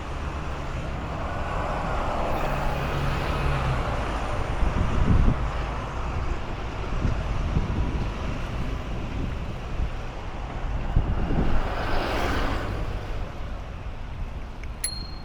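Road traffic: a steady rumble of passing vehicles, with one passing close and swelling up and away about twelve seconds in. A short sharp click comes near the end.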